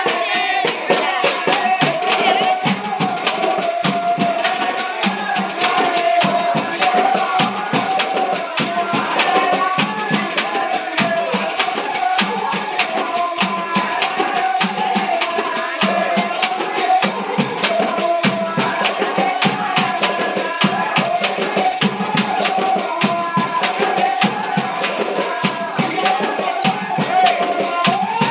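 Live Telugu folk music: hand tambourines beaten in a fast, steady rhythm under a continuous wavering melody line.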